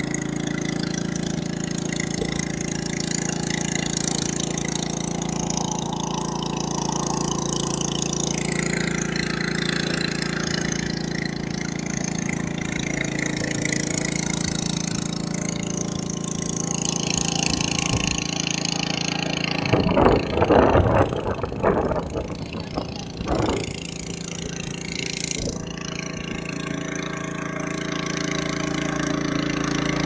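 Small boat engine running steadily under way, a constant drone with water and wind rush over it. About twenty seconds in, a louder, irregular patch of sound lasts a few seconds.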